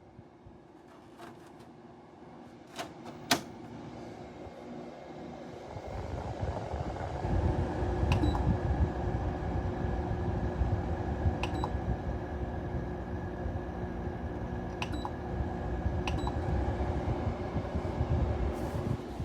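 Window air-conditioning unit switched on with a sharp click, then its motor spins up a few seconds later and runs with a steady hum over a low rumble, with a few faint ticks.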